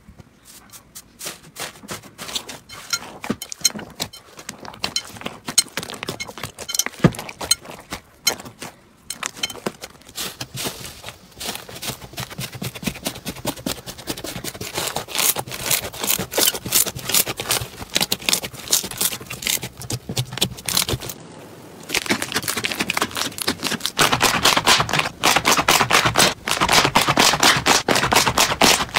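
Slime being handled, giving off rapid crackling and popping clicks. About 21 seconds in there is a brief break, after which the crackling is denser and louder.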